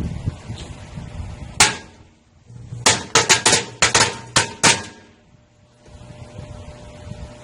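A string of firecrackers exploding inside a microwave oven: one sharp bang, then a rapid string of about eight more bangs over roughly two seconds.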